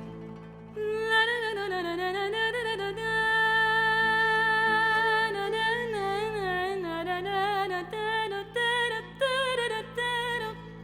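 Violin playing a solo Arabic melody with wide vibrato and sliding ornaments, coming in about a second in and breaking into short phrases near the end, over a steady low drone.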